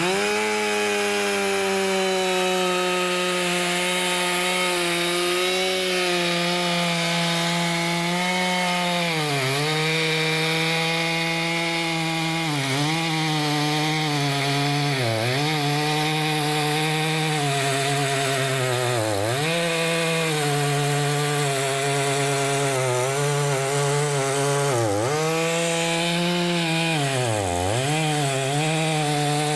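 Stihl professional two-stroke chainsaw running at high revs while cutting through a large wooden timber, its pitch dipping briefly several times under load and then recovering.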